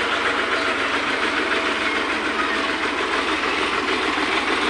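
Sonalika tractor's diesel engine running steadily as it pulls a loaded trolley of sand slowly past at close range, a rapid even chugging throughout.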